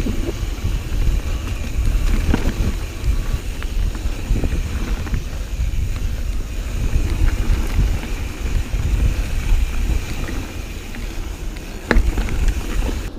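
Mountain bike rolling over dirt singletrack, heard through an action camera's microphone: a steady low wind rumble on the mic and tyre noise, with frequent small rattles and clicks from the bike and a sharper knock near the end.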